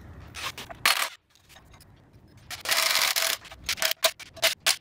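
Hand ratchet clicking while undoing the timing-cover bolts of a 948cc A-Series engine. A fast run of clicking comes first, then slower, evenly spaced clicks about five a second with a slight metallic ring. A few sharp clicks of tool on metal come near the start.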